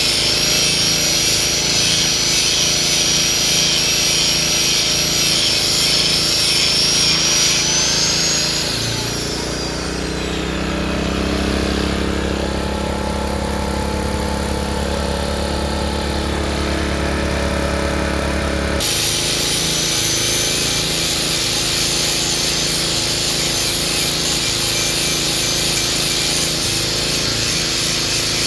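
Hitachi excavator running hard while chipping oil palm trunks, its engine and hydraulics giving a loud steady noise with a high whine that shifts in pitch. Midway a steadier, lower hum takes over for about ten seconds, then the full working noise cuts back in abruptly.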